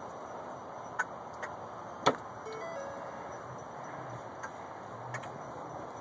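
Grackles feeding and squabbling over food on asphalt: a handful of sharp clicks a second or more apart, the loudest about two seconds in, over steady outdoor traffic noise.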